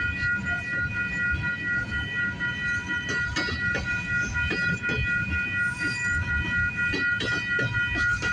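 CP freight train rolling past: a low rumble of wheels with irregular clicks over the rail joints, and a steady high-pitched ringing tone over it.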